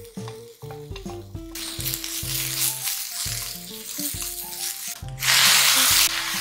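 Fried tofu strips and spinach sizzling in sesame oil in a frying pan as they are stirred, with light background music. About five seconds in the sizzle jumps much louder for about a second, as the liquid seasonings of sake and soy sauce go into the hot pan.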